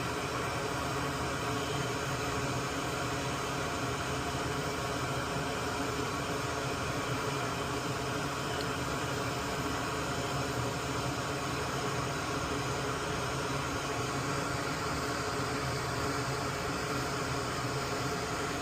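Steady whirring hiss of a small fan running, unchanging, with a faint hum under it.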